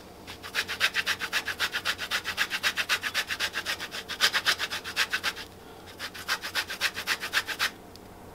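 Orange peel scraped across a handheld metal grater while zesting an orange: quick, even rasping strokes, about five or six a second. There is a brief pause about five seconds in, and the strokes stop near the end.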